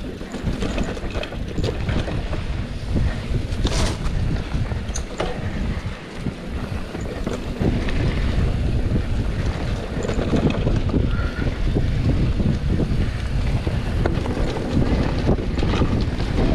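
Wind buffeting the microphone of a camera riding along on a mountain bike, over a low rumble with scattered clicks and rattles from the bike and tyres on the trail. It grows louder about halfway through.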